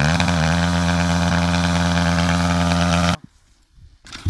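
MRF 140 pitbike engine running at high, steady revs. The pitch wavers briefly at the start, then holds flat until the sound cuts off abruptly about three seconds in.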